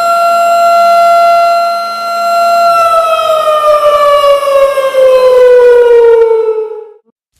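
A siren holds one steady tone, then winds down in pitch over about four seconds and dies away about seven seconds in.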